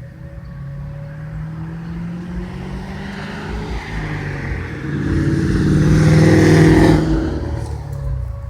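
A car passing close by: its engine and tyre noise build for several seconds, are loudest about six seconds in, and drop away sharply about a second later.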